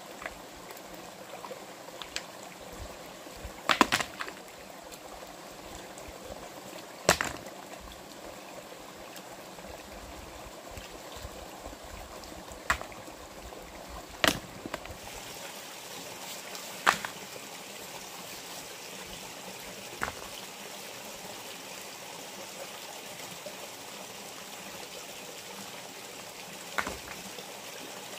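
Steady rush of flowing water, broken by sharp single knocks a few seconds apart at irregular intervals, about nine in all; the loudest come about four and seven seconds in.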